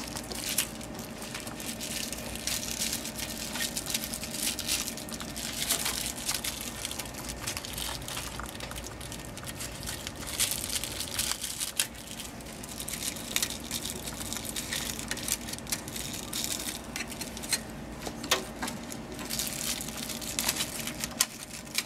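Plastic wrapping crinkling and rustling in the hands while a new print head and its ribbon cables are handled, with many small ticks and clicks, over a steady low hum.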